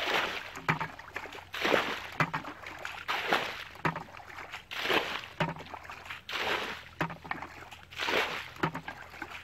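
Water being bailed out of a shallow muddy ditch with a plastic bucket: a scoop and sloshing splash repeating about every second and a half.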